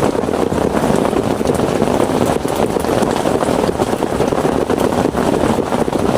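Heavy rain falling steadily: a dense, even hiss with scattered sharper drop taps.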